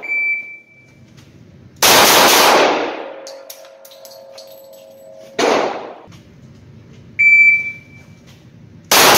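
Three shots from a Smith & Wesson CS45 .45 ACP pistol, about 2, 5.5 and 9 seconds in, each echoing for about a second off the walls of an indoor range. A short electronic beep sounds at the start and another about 7 seconds in.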